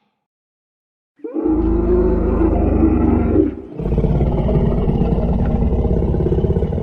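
Dinosaur roar sound effect: a deep, rough roar begins about a second in, and a second, longer roar follows almost at once and is still going at the end.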